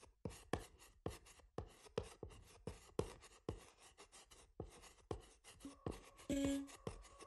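Writing sound effect: a quick, irregular run of sharp clicks and taps, about three or four a second. From about six seconds in, short soft held tones join it as music starts.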